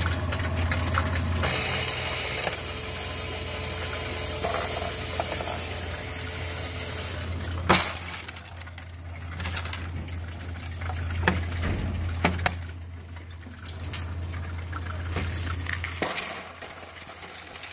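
Bank coin-counting machine running: its motor hums steadily while loose coins rush and rattle through it for several seconds. Then come a few sharp clinks and knocks as more coins are tipped in from a tray, and the motor hum stops near the end.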